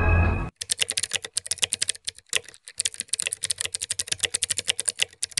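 Computer keyboard typing, a fast run of keystrokes with a short pause about halfway through. The music before it cuts off about half a second in.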